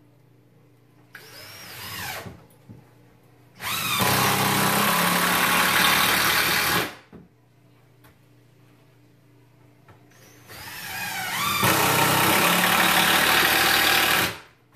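Cordless impact driver driving screws into a wooden header at an angle (toenailing). Twice it spins up briefly and then runs loud for about three to four seconds, hammering as the screw meets resistance and bites into the wood.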